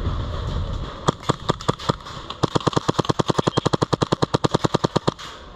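Airsoft gun firing: single shots a few times a second, then a long fully automatic string at about a dozen shots a second lasting nearly three seconds, then a few more single shots. A low rumble comes before the shots, in the first second.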